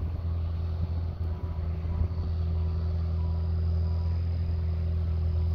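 An engine running steadily with a deep, even hum and a faint high whine, growing slightly louder about two seconds in.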